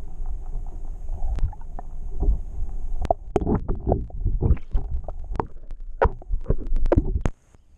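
Muffled underwater sound of a submerged action camera in lake water: a low rumble and gurgling, with frequent knocks and sloshes as water moves around the housing. It cuts off suddenly near the end.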